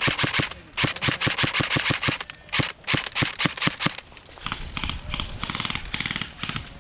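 Airsoft guns firing on full auto: rapid strings of sharp cracks, about eight shots a second for the first four seconds, then a faster, quieter string near the end.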